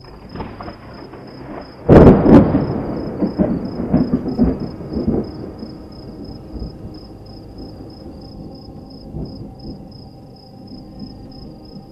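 Thunder: a sharp crack about two seconds in, followed by rolling rumbles that fade over the next few seconds.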